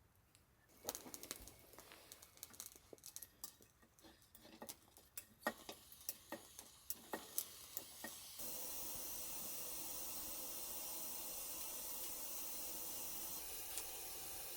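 Small clicks and taps of handling, then about eight seconds in a steady hiss starts suddenly: a Manaslu pressure stove's burner lit and running.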